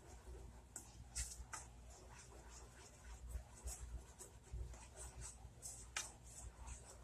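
Wooden spoon stirring thick barbecue sauce in a saucepan, giving faint, irregular scraping strokes against the pan, over a faint low hum.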